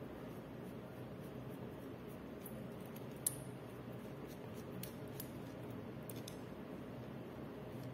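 Scattered small metallic clicks of a Phillips screwdriver turning a screw out of a 3D printer hotend's heater block, with one sharper click about three seconds in, over a steady low hum.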